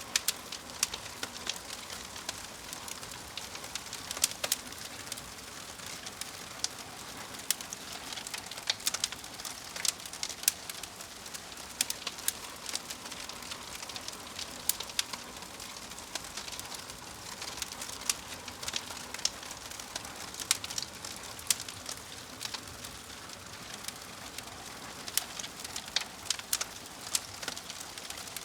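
Wood fire crackling: irregular sharp pops and snaps, several a second, over a steady hiss of burning.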